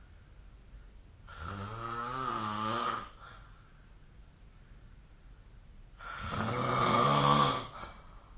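A person snoring: two snores about five seconds apart, each lasting under two seconds with a low pitched tone, the second one louder.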